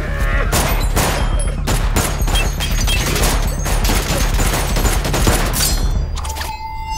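Rapid gunfire in a TV action-scene soundtrack: a long, dense run of shots that stops about six seconds in.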